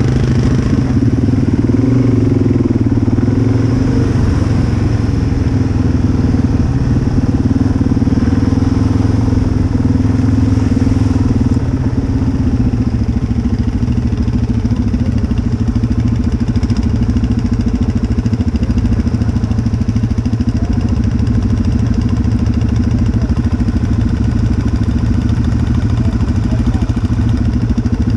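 Dual-sport motorcycle engines running steadily at low speed, easing off slightly about twelve seconds in.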